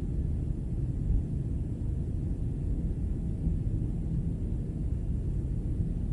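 Steady low rumble of jet airliner cabin noise in flight, the engines and rushing air heard from inside the cabin.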